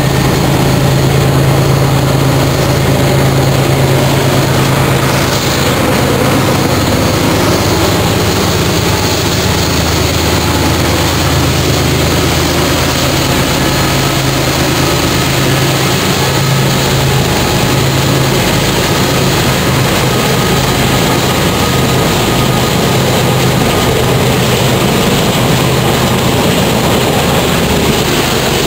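Several BNSF diesel-electric locomotives hauling an eastbound double-stack intermodal train up the grade, their engines a loud, steady low drone under load as they pass, with the rolling noise of the stack cars following.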